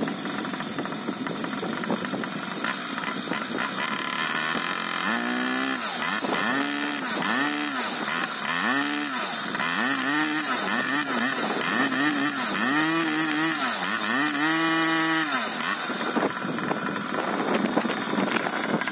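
The 49cc two-stroke pocket-bike engine of a homemade 1/5-scale RC buggy runs steadily, then is revved up and down about ten times in a row, roughly once a second. Each rev is a rising and falling whine, and the last is held a little longer before the engine settles back.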